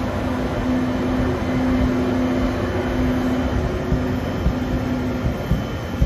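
ÖBB Railjet passenger coaches rolling past the platform: steady wheel and track rumble with a humming tone that comes and goes, and a few sharp knocks near the end.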